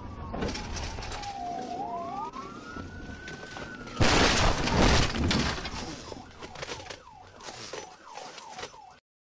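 Police car siren wailing in slow rising and falling sweeps, heard from inside the speeding patrol car over road noise, then a loud crash about four seconds in as the patrol car collides with another car. Clattering and short falling chirps follow and fade until the sound cuts off.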